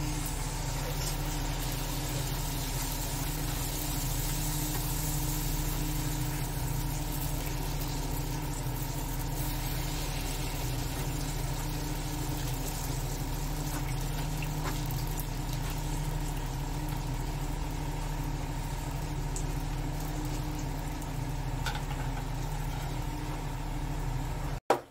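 Puri deep-frying in hot oil in a kadhai, giving a steady even sizzle, over a constant low mechanical hum.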